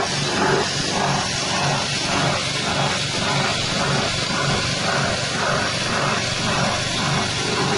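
Engine-driven corn-cob grinding mill with a 6.5 hp engine, running steadily with a continuous rushing noise and a faint pulse about twice a second.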